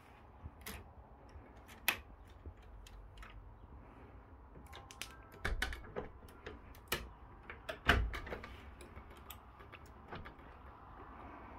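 Irregular clicks and light knocks from handling a white uPVC casement window, its handle and frame; the loudest knock comes about eight seconds in.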